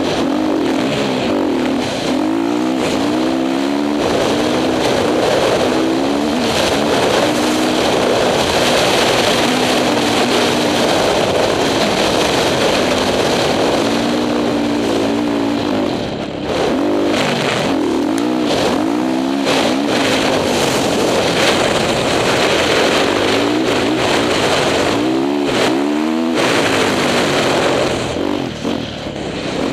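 Honda CRF450 dirt bike's single-cylinder four-stroke engine, heard from on the bike, revving up and down over and over as it climbs and crests sand dunes, easing off briefly about sixteen seconds in and again near the end.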